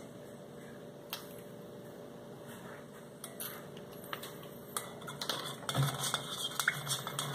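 Quiet room tone with a few small clicks, then from about five seconds in a plastic utensil scraping and clicking against a stainless steel mixing bowl as a glue-and-water mixture is stirred.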